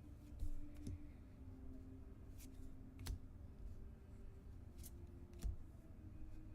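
Trading cards being handled and flipped through, giving soft clicks and taps now and then over a faint steady hum.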